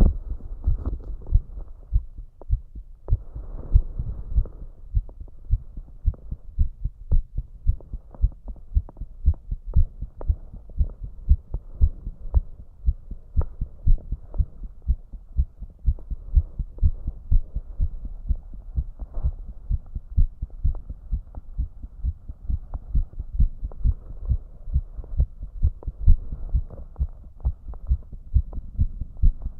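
A man's heart beating fast, at around 150 beats a minute: an even, rapid run of low thumps.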